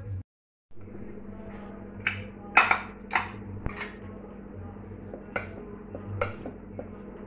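Steel ladle clinking and scraping against the inside of an aluminium pressure cooker pot while stirring cooked cluster bean curry: a handful of sharp metal clinks, the loudest about two and a half seconds in, over a steady low hum.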